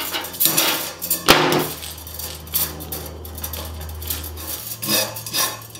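Coil of 3/16-inch steel brake tubing being handled and unwound, the metal line scraping and clinking against itself, with one sharp knock about a second in.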